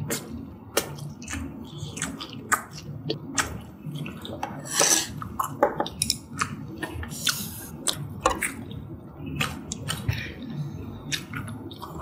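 Close-up eating sounds: chewing and wet mouth clicks, with chopsticks clicking and scraping in a pot of malatang broth. Two brief louder rushing sounds come about five and about seven seconds in.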